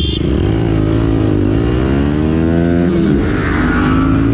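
Motorcycle engine accelerating hard on the move: its pitch climbs, drops back as it shifts up a gear about a second and a half in and again about three seconds in, then climbs once more, over a steady low rumble of road and wind noise.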